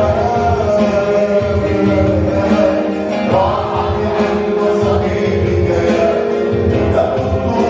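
Arabic Christian worship song: voices singing long held notes over instrumental backing with a steady beat.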